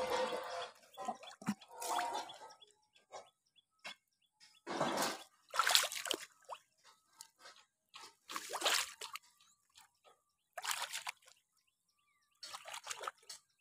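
Water splashing and sloshing in irregular bursts, one every second or two, as someone wades through shallow muddy floodwater.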